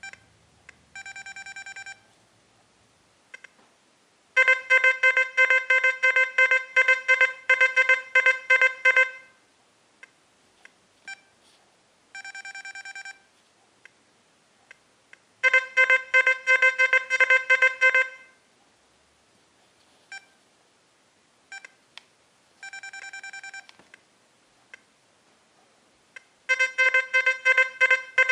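XP Deus metal detector sounding its target tones as a test object is passed over the coil: three long runs of loud, rapidly pulsing beeps. Each run is preceded by a softer, shorter steady beep, and faint clicks fall between the runs.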